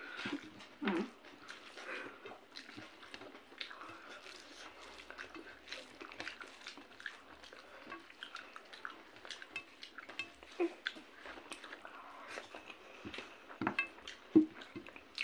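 Close-up eating sounds: fingers mixing rice and curry on a plate and chewing with lip smacks, heard as many small irregular clicks and squelches, with a few louder ones about a second in and near the end.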